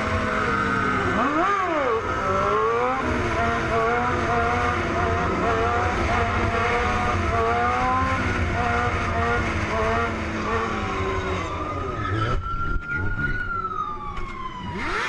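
Motorcycle engines revving up and down through the gears, with wind noise over the microphone; the engine note thins and eases off about 11 seconds in.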